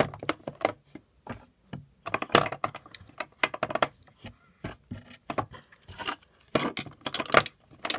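Makeup compacts, palettes and mirrors being picked up and set down on a wooden desk: irregular clusters of clicks, taps and knocks as the items are put away, the loudest about two and a half seconds in and near the end.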